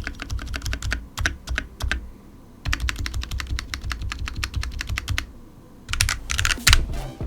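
Typing on a Smart Duck XS61 budget mechanical keyboard: quick runs of clacky keystrokes with two short pauses, ending in a few louder separate key presses.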